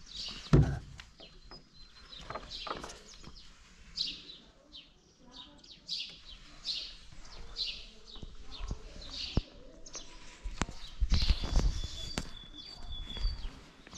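Small birds chirping, short high calls repeating every second or so. A single loud knock sounds about half a second in, and a burst of low rumbling noise comes near the end.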